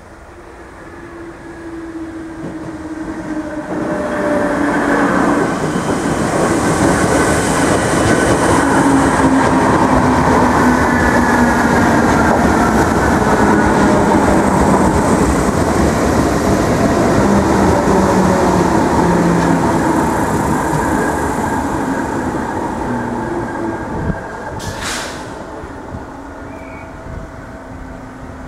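Irish Rail 8100 class DART electric multiple unit approaching and running past along the platform, building to a loud steady rumble of wheels on rail with a whine that falls in pitch, then fading away. A single sharp click comes near the end.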